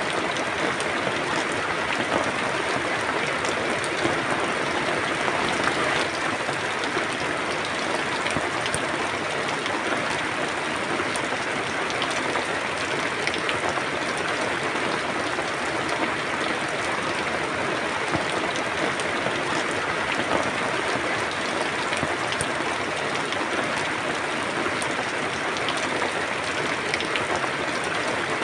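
Steady rain falling: an even, continuous hiss with many faint drop ticks scattered through it.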